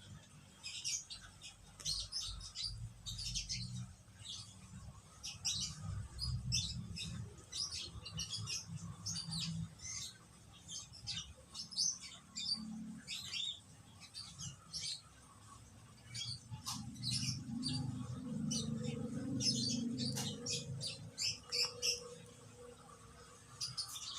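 Rapid, high-pitched chirping and squeaking from small animals, many short calls a second throughout, over a low rumble.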